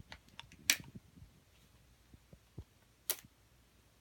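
Small plastic toy pieces and packaging being handled: a few light ticks and taps, with two sharper clicks, one just under a second in and one about three seconds in.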